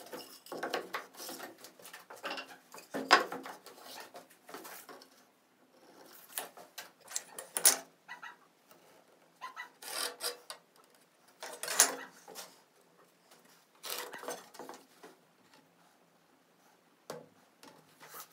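Wood being worked by hand: irregular scraping strokes and short knocks of wood on wood, in clusters a couple of seconds apart.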